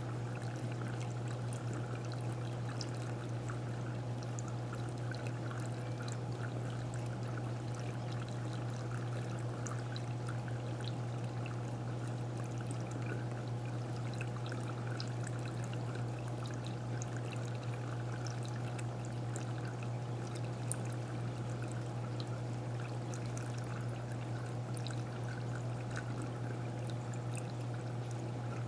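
Steady aquarium water-circulation noise: water pouring and trickling over a constant low pump hum, with faint scattered tiny clicks, unchanging throughout.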